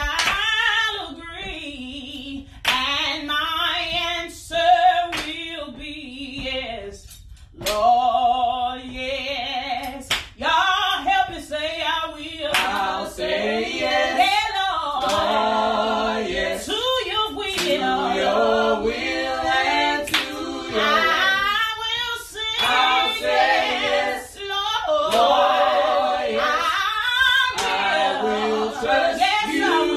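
A small group of voices singing a gospel song a cappella, led by a woman's voice. A single voice carries the line at first, and the others join in harmony about twelve seconds in.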